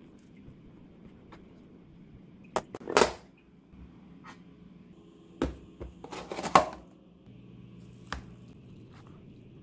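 A few sharp clicks and knocks and two brief scraping or rustling noises, over a faint steady hum.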